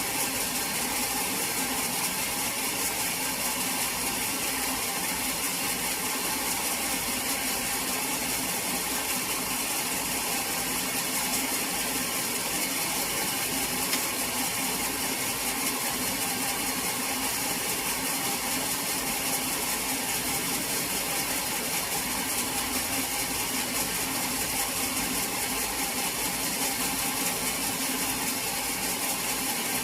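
Sawmill machinery running steadily, a continuous machine sound with a high hiss that does not let up or change.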